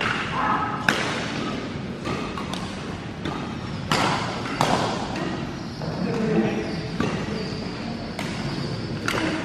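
Badminton rally: rackets striking the shuttlecock in a quick series of sharp smacks, roughly once a second, echoing in a large sports hall.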